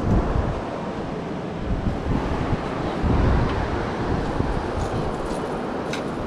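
Wind buffeting the microphone over steady surf noise, with strong gusts at the start and again around three seconds in. A faint click near the end.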